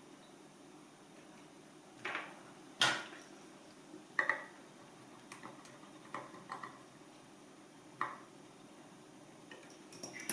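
Scattered sharp metallic clicks and taps of small hand tools and parts being handled while the power cord's wires are fitted into the grinder's terminals: about eight separate knocks, the loudest about three seconds in and at the end.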